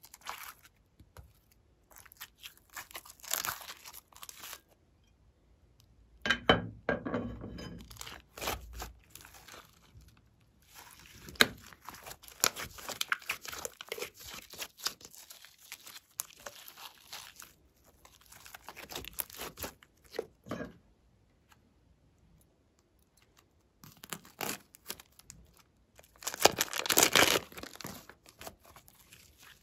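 Hands squeezing, stretching and pulling apart glossy slime, making sticky crackling and tearing sounds that come in irregular bursts a second or two long, with short quiet pauses between them.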